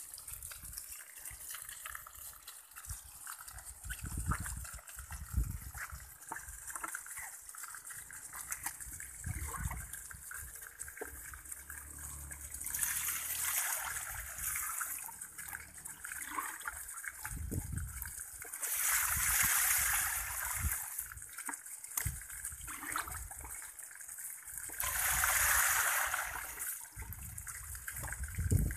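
Water poured from a bucket into a plastic basin, coming in three separate gushes a few seconds apart. Smaller splashes and trickles sound in between.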